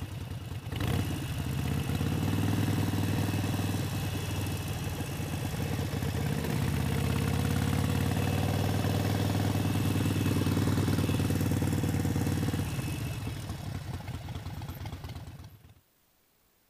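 Harley-Davidson Sportster 72's 1200 cc air-cooled V-twin running at low speed as the bike rolls slowly along, a steady low beat that eases off over the last few seconds and then stops suddenly near the end.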